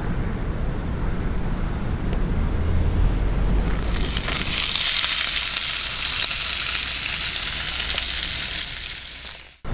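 Low wind rumble on the microphone, then from about four seconds in a loud, even sizzling of sliced potatoes frying in fat in a pan over a gas camping stove, fading out near the end.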